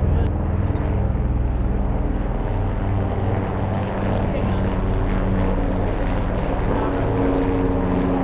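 Helicopter close by, a loud steady rotor thrum with engine tones.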